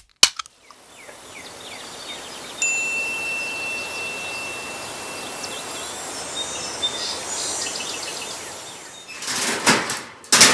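Outdoor ambience: a steady hiss with faint small chirps, one high held tone lasting about three seconds, and a few knocks near the end.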